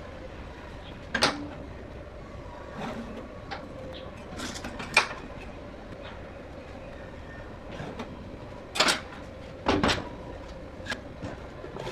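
Irregular knocks and clunks, about eight over a dozen seconds, with the loudest near the end, over a faint steady hum. There is no grinder running.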